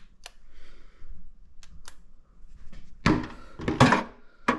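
Tools and parts being handled and pulled out of an old toolbox: a few light clicks, then a louder clatter of knocks about three seconds in, and one sharp knock near the end.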